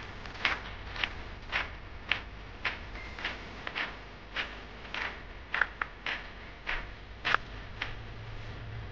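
Footsteps of a person walking at an even pace, about two steps a second. A low steady hum comes in near the end.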